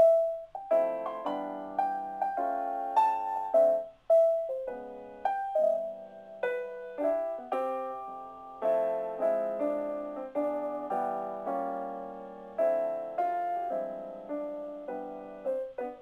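Background piano music: a gentle melody of struck notes and chords, each note fading away after it is played.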